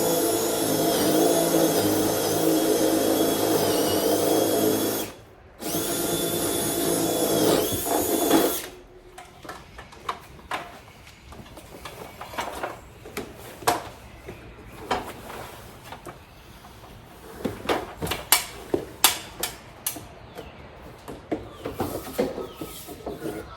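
Power drill with a 5/8-inch bit boring holes through barn purlins for electrical cable, in two runs of about five and three seconds with a short break between them; its whine dips briefly in pitch a few times. Afterwards there are scattered clicks and knocks.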